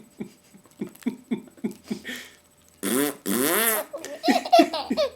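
A man blowing a fart noise with his lips, a loud buzzy raspberry about a second long, about three seconds in. Short bursts of a baby's laughter come before and after it.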